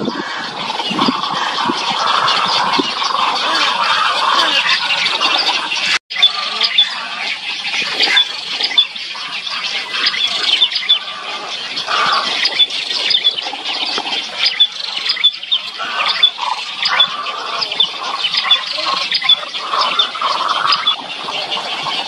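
Great egret nesting colony: many overlapping squawks and chattering calls of adults and chicks, with sharp high chirps running through it. The sound cuts out for an instant about six seconds in.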